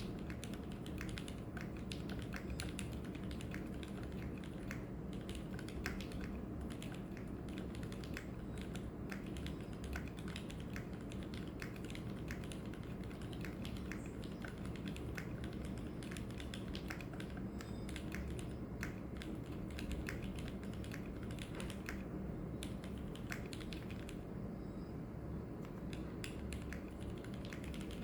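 Typing on a Stello 65 mechanical keyboard with vintage Black switches on an aluminium plate and Cherry stabilisers: a steady run of keystrokes, thinning briefly about 24 seconds in.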